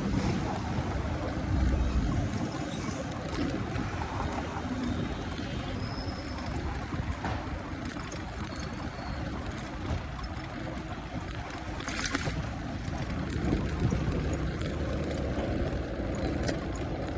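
Steady city street ambience, mostly motor traffic with a constant low rumble, and a brief hiss about twelve seconds in.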